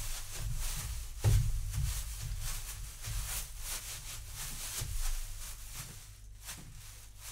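Foley sound effects: a run of irregular soft knocks and rustles over a low rumble, with a heavier thump about a second in, growing fainter near the end.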